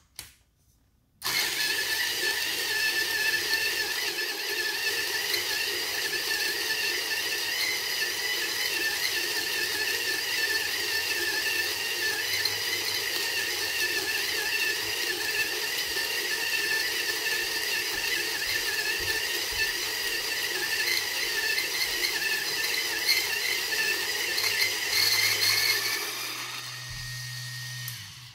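A Gawoody electric motor kit driving a 1Zpresso K Pro hand grinder, grinding light-roast coffee beans at espresso fineness. It makes a steady whirring whine without stalling, starting about a second in. Near the end the grinding noise falls away to a quieter hum as the beans run out, and the motor stops just before the end.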